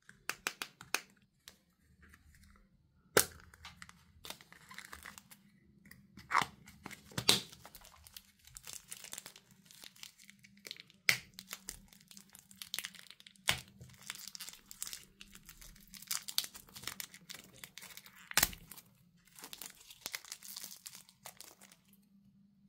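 Hands crinkling and tearing open a small shiny plastic wrapper around a little toy figure, with several sharp clicks spread through.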